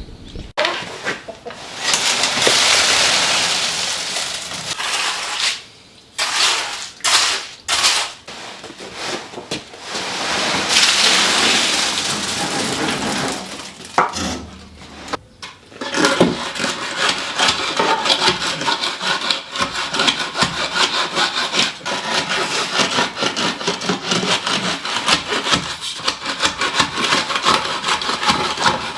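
Hand tools scraping and rubbing in repeated strokes, in several stretches broken by short gaps, settling into a fast, even run of strokes in the second half.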